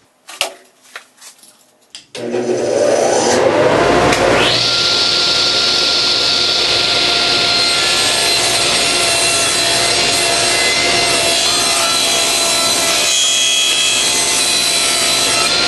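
Table saw switched on about two seconds in, its motor and blade spinning up with a rising whine, then running steadily as it rips a red cedar board to width.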